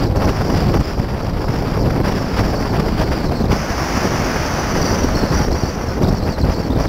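Wind rushing over the camera microphone on a car cruising at a steady 42 mph, with the low running of a 2006 Porsche Cayman S's flat-six at about 3,000 rpm and the tyre noise underneath.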